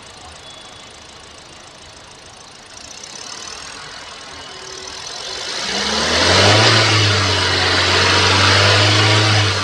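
Kia Sonet 1.2-litre four-cylinder petrol engine idling quietly, then revved up about halfway through and held at high revs before dropping back near the end. It is running cleanly now that the faulty ignition coil behind its cylinder misfire has been replaced.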